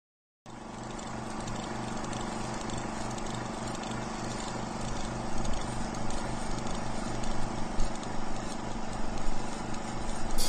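Droning, noisy intro of a heavy rock track, swelling louder from about halfway, with a cymbal-like crash at the very end as the band comes in.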